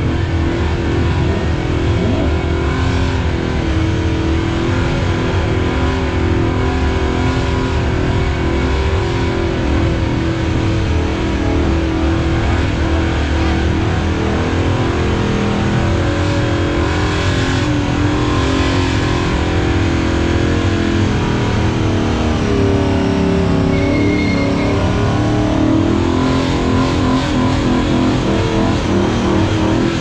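Car engine held at high revs through a burnout, the revs wavering up and down and dipping briefly about two-thirds of the way in, as the rear tyres spin and smoke.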